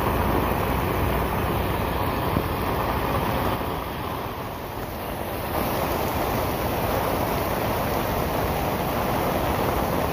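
Heavy rain pouring steadily onto a road, with vehicles passing on the wet surface; the rain noise softens briefly about halfway through.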